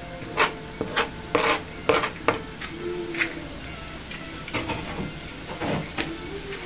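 Minced garlic sizzling in hot oil in a frying pan, with scattered sharp pops and crackles.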